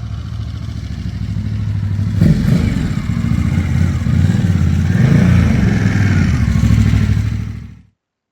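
Motorcycle engine running, growing louder and more uneven about two seconds in as it is revved, then cut off abruptly near the end.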